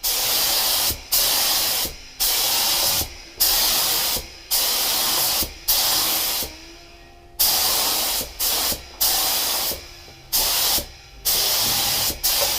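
Compressed-air spray gun spraying primer in a string of roughly a dozen short hissing bursts, each about a second long, as the trigger is pulled and released, with a fainter hiss between them.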